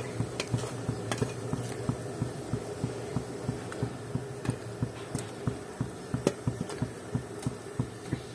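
Water at a full boil bubbling in an aluminium pot, with irregular small pops and soft plops as cauliflower florets are dropped in one by one, over a steady low hum.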